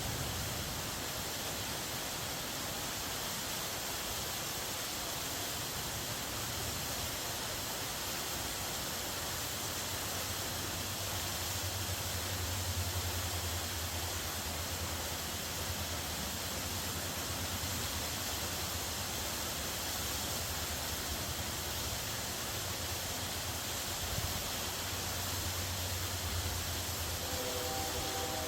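Waterfall's steady rush of falling water, with a low rumble that swells and eases.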